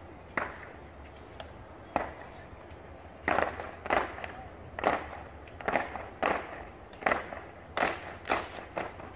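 Step team stepping in unison, with stomps and hand claps. A few scattered hits come first, then about three seconds in a steady beat of loud hits begins, roughly every two-thirds of a second.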